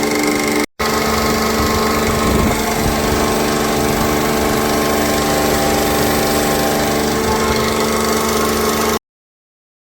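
Leybold SOGEVAC SV300B oil-sealed rotary vane vacuum pump running steadily after repair, a loud, even machine hum with several fixed tones. The sound drops out for a split second just under a second in and cuts off abruptly near the end.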